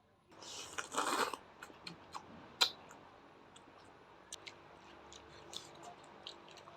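A brief rustle, then scattered small clicks and taps from things being handled, with one sharper click about two and a half seconds in.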